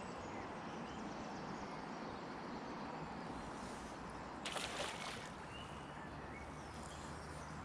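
Low water sloshing with a short splash about four and a half seconds in, as a hooked rainbow trout thrashes at the surface while being landed.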